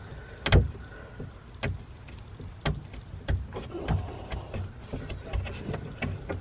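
Scattered sharp clicks and light knocks, roughly one a second, the loudest about half a second in, over a faint low hum.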